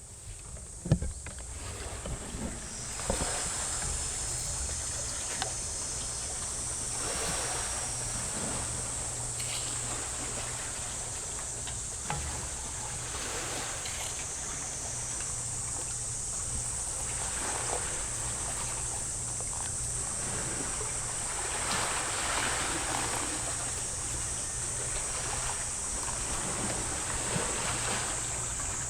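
Sea waves washing ashore, swelling and falling back every few seconds over a steady low rumble, with a constant high-pitched hiss running throughout.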